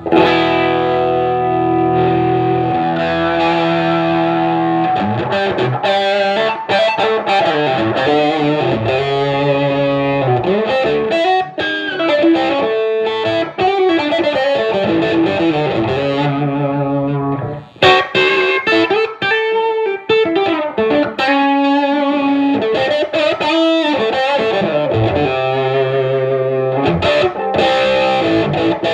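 Electric guitar through a Fuzz Face/Tone Bender MK1.5 hybrid fuzz pedal on its Tone Bender 1.5 setting with the fuzz full up, played on a 2013 Gibson '58 reissue Les Paul's humbucker with the guitar volume partly rolled up, into a 1969 Fender Bassman. Held fuzzed chords for the first few seconds, then riffs of distorted notes and chords, with a short break about 17 seconds in.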